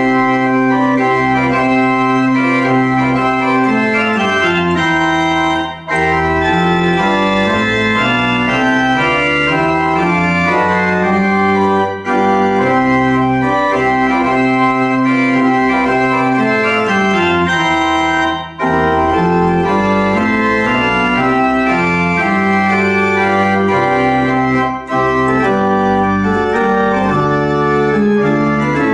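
Pipe organ played with manuals and pedals: sustained chords over a slowly moving bass line, with brief breaks between phrases about every six seconds.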